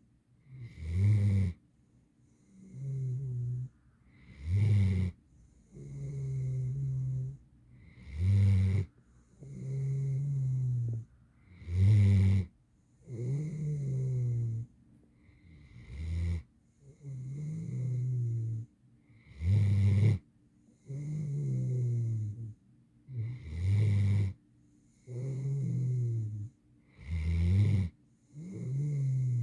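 An 8-month-old mantle Great Dane puppy snoring in her sleep: short loud snores alternating with softer, longer ones, about one pair every four seconds.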